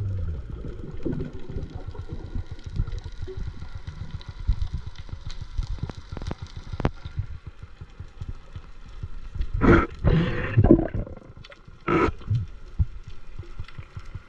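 Water sloshing and knocking against a diver's camera, heard as a low rumble, with a sharp click about seven seconds in and loud rushing bursts around ten and twelve seconds in.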